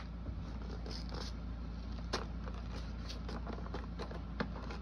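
Handling noise close to the microphone: a few light clicks and faint scrapes over a steady low hum.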